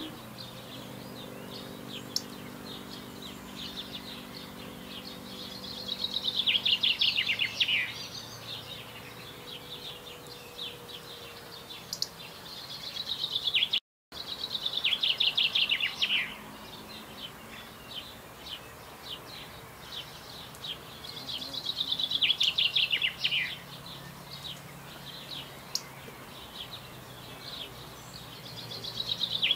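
A songbird repeatedly sings a short, fast, trilled phrase that falls in pitch and lasts a second or two. The phrases come every several seconds, with softer scattered calls between them. The sound cuts out for a moment about halfway through.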